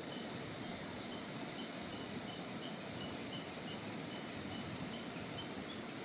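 Steady rushing of a mountain river over stones, with a faint, high chirp repeated a couple of times a second.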